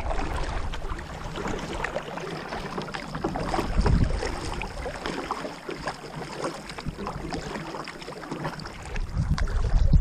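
Kayak paddle strokes: water splashing and dripping off the blades and lapping along the hull. A low rumble of wind on the microphone swells about four seconds in and again near the end.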